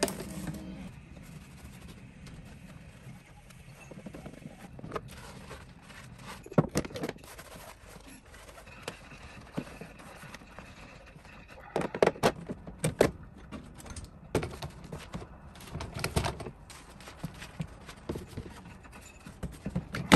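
Intermittent clicks and knocks in a few short clusters, over a faint steady background.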